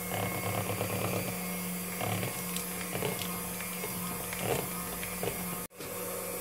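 Electric hand mixer running steadily, its twin beaters whisking thin cocoa cake batter in a plastic bowl as baking powder is mixed in. The hum cuts out for an instant near the end.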